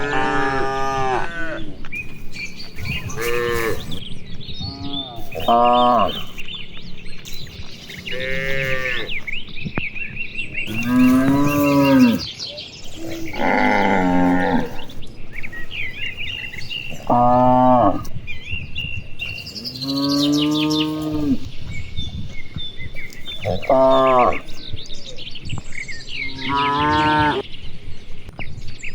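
A herd of cattle mooing, one long call after another about every two to three seconds, some rising and falling in pitch.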